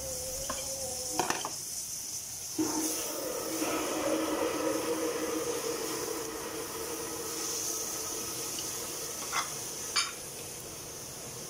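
Stir-frying in a steel wok on a gas burner: vegetables sizzle steadily as they are stirred and tossed with a wooden spatula. A few sharp clinks come near the start and again near the end.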